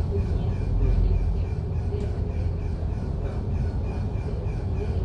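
MAN A95 double-deck bus running, heard from inside: a steady low rumble with a faint high-pitched tone pulsing about three times a second, the weird engine sound the bus makes while in service.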